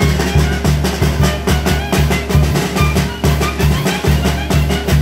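A live band of brass and drums playing a dance tune with a steady beat: repeated bass notes under drum and cymbal strokes and a brass melody.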